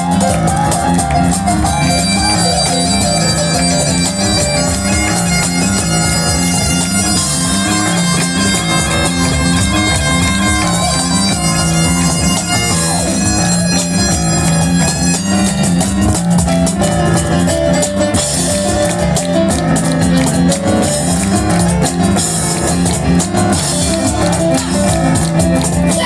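Live instrumental music led by a bagpipe: the chanter plays the melody over the pipe's steady drone, with piano and drums behind it.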